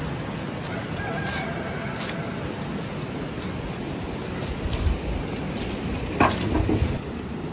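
Steady rushing background noise with light footsteps on wet grass, then a sharp clatter about six seconds in as the corrugated metal lid of a small brick-and-wood covered box is handled and lifted.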